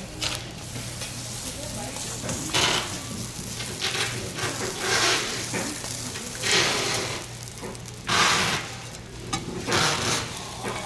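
Korean pancake batter frying in oil on a hot griddle, a steady sizzle that swells into louder bursts of hissing about five times.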